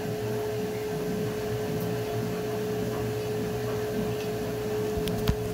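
A steady machine hum with a constant mid-pitched tone over a low rumble, and a couple of sharp clicks near the end.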